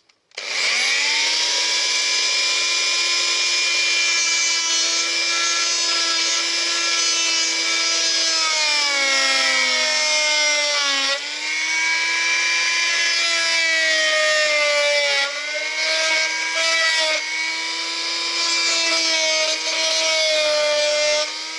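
Bosch oscillating multi-tool running, its plunge blade cutting a hole in a timber dashboard. The motor's steady whine starts about half a second in and sags in pitch several times as the blade bites into the wood.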